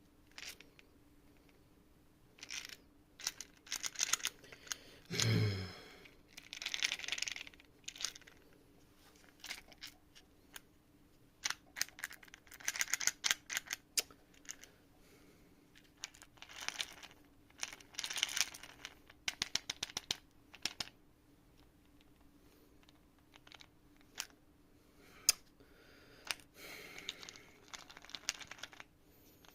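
3D-printed plastic brain-teaser puzzle being worked by hand: irregular bursts of plastic clicks, clatter and scraping as its parts slide and rattle. A short, low falling sound comes about five seconds in.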